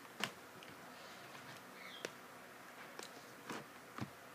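Faint hiss with a handful of soft, scattered clicks and taps.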